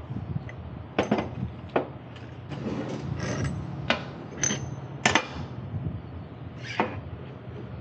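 Tools and metal parts knocking and clinking: about six separate sharp knocks, one near the middle ringing briefly like struck metal, over a steady low hum.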